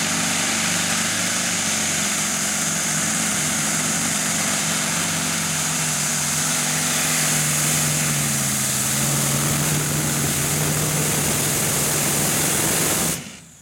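Light modified pulling tractor's engine running hard under load while dragging the sled, a loud, steady drone over a strong hiss. The pitch sags briefly past the middle and picks back up, then the sound cuts off abruptly near the end as the engine is shut down at the end of the pull.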